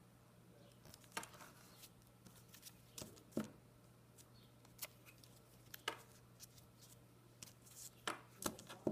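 Scattered soft clicks, taps and paper rustles as small magazine-paper pieces are rubbed with a glue stick and pressed down by hand, over a faint steady hum.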